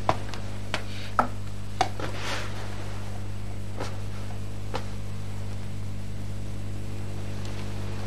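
Footsteps on a wooden floor: a few sharp knocks about two-thirds of a second apart in the first two seconds, then two fainter ones later. Under them runs a steady low electrical hum.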